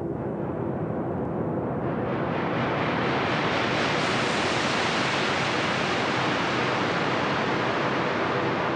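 Synthesizer noise: a hiss that grows louder and brighter over the first four seconds or so, then holds steady, as the sustained drone tones drop out.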